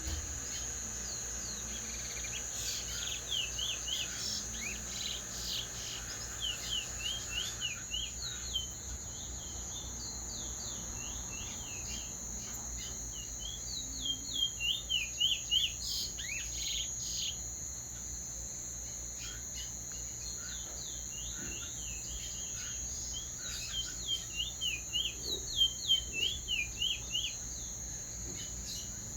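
A songbird used as a teacher bird singing its roll: three bouts of rapid, repeated falling notes, the second and third louder, about ten and twenty seconds apart. A steady high insect whine, like crickets, runs underneath.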